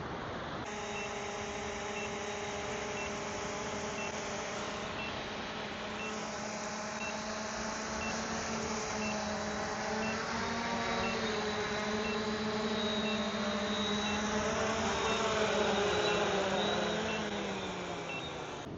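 A motor vehicle's engine running, its pitch wavering and then dropping near the end, with a reversing beeper sounding at a steady rate.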